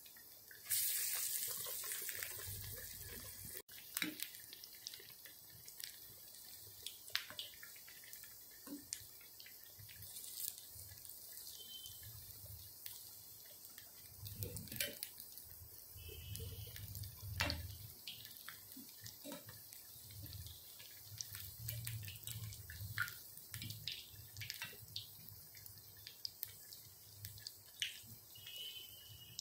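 Black-eyed pea vadas deep-frying in hot oil: steady sizzling full of small crackles and pops, with a loud surge of sizzling about a second in that dies down over the next two seconds.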